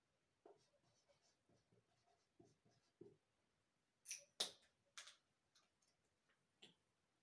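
Marker pen writing on a whiteboard: faint short squeaking strokes and scrapes, with a few sharper, louder strokes about four seconds in.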